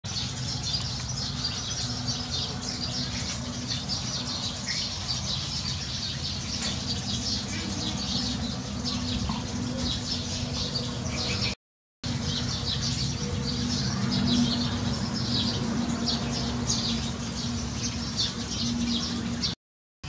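A dense chorus of Eurasian tree sparrows chirping, many short high chirps overlapping without pause, as the flock gathers to roost. A low steady hum runs underneath, and the sound cuts out briefly twice, near the middle and at the end.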